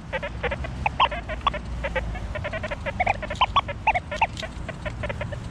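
XP Deus 2 metal detector giving a rapid chatter of short beeps at shifting pitches as the coil sweeps ground thick with iron, signalling a big iron target.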